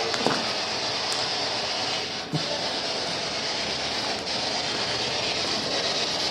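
Ghost box (spirit box) radio scanner sweeping through stations: a steady hiss of static, broken by brief dropouts about two seconds and four seconds in.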